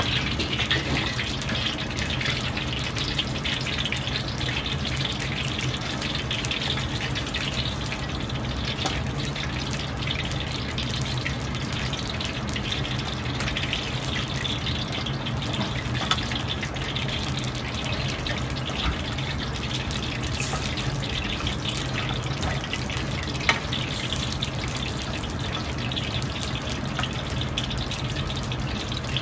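Steady rush of a gas wok burner, with a light sizzle of pumpkin slices frying in the oil and a few small clicks as more slices go in.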